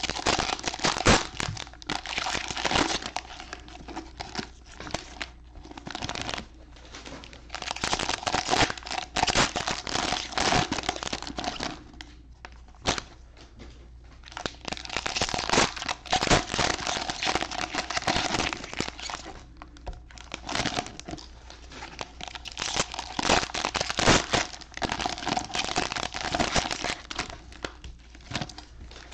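Wrappers of football trading-card packs being torn open and crumpled, a dense crinkling that comes in several bursts of a few seconds each with short pauses between them.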